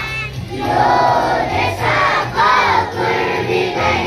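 A large group of schoolchildren singing together in unison, loud, in phrases of held notes with short breaks between them.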